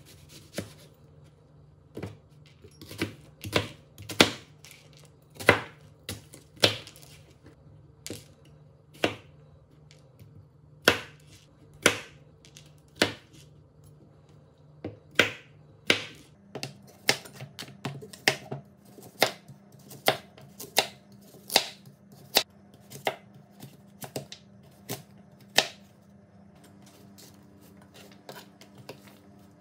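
Chef's knife chopping onion, potato and carrot on a plastic cutting board: an irregular run of sharp knocks as the blade hits the board, about one to two a second.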